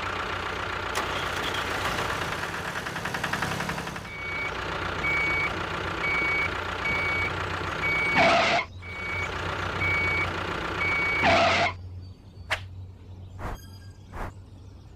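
A vehicle engine running steadily, with reversing beeps starting about four seconds in at roughly one and a half beeps a second. Two loud hisses interrupt it, and near the end it gives way to a few faint clicks.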